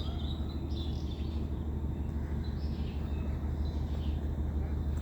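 Diesel generator engine running steadily, a constant low hum and drone. Birds chirp faintly above it.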